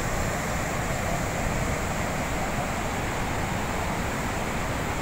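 Water pouring through a dam's open spillway gates and crashing into the river below, a steady rushing noise without a break.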